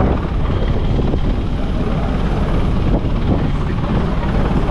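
Rescue helicopter's rotor and engine running steadily as it hovers near the ship, a continuous low rumble.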